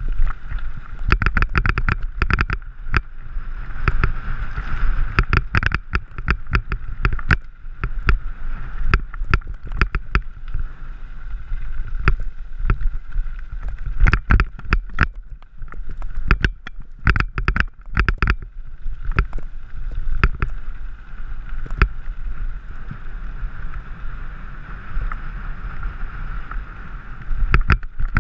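Mountain bike riding fast over a rocky gravel trail: tyres crunching on loose stones and a rapid run of irregular clattering knocks as the bike jolts over the bumps.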